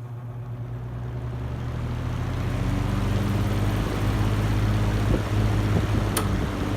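Vintage 20-inch Lau box fan starting up on high: its hum and air rush build over the first two to three seconds, then run steady. The blade is missing one of its balance weights, so the fan runs with a slight vibration. There is a single sharp click about six seconds in.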